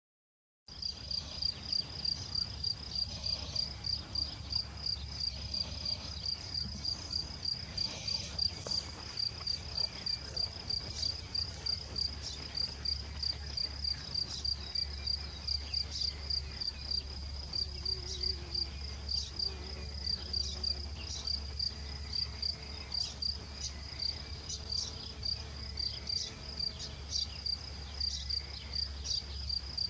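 Cricket chirping in a steady, even rhythm of about two high-pitched chirps a second. It starts abruptly about half a second in, over a faint low hum.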